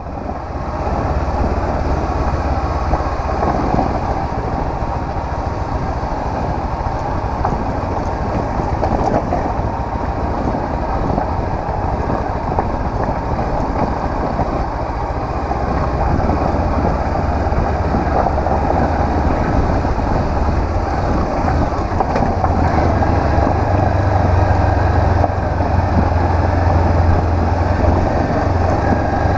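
Honda CB500X's parallel-twin engine running steadily while the motorcycle is ridden, with a steady rush of wind and road noise over it. The engine hum grows louder over the last few seconds.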